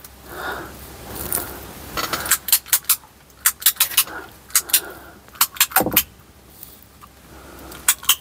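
Quick clusters of sharp metallic clicks and clinks from small metal parts and tools being handled while a ground wire is fitted to the dimmer-switch wiring, with a duller knock about six seconds in.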